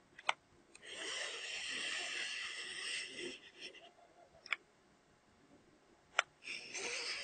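X-Rite i1Pro handheld spectrophotometer scanning a strip of printed color patches: sharp clicks, then a scraping rub of a few seconds as it slides along the ruler over the paper. There are more clicks, and a second slide starts near the end.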